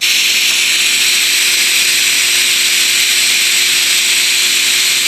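TIG welding arc running at about 150 amps on a pass without filler wire: a loud, even hiss with a steady hum beneath it, starting abruptly.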